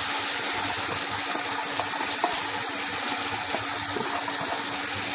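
Steady frying hiss from a steel pan on the stove as yogurt-marinated chicken is scraped in from a plastic container, with a few faint soft taps.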